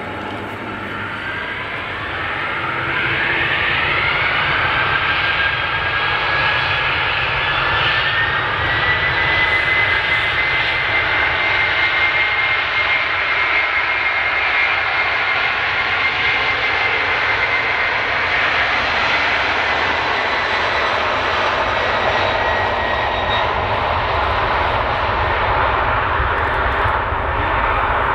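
Boeing 747-400's four turbofan engines spooling up to takeoff power. A whine rises in pitch over the first several seconds as the roar grows, then both hold steady and loud as the jumbo jet begins its takeoff roll.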